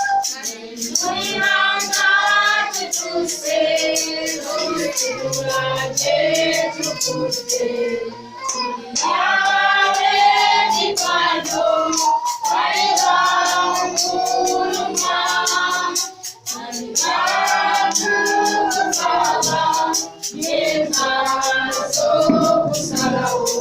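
Choir of voices singing a song, with a shaker keeping a steady beat.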